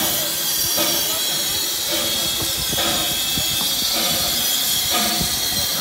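Heritage steam train running: a steady hiss of steam with a regular knock about once a second.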